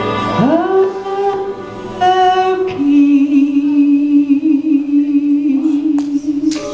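A woman singing solo into a microphone: her voice slides up into a held note about half a second in, then steps down to a lower note near the three-second mark and holds it with vibrato for nearly four seconds.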